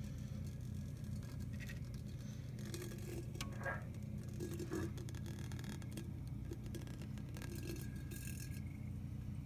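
Steady low hum with scattered light clicks, rattles and scrapes over it, a little busier in the middle.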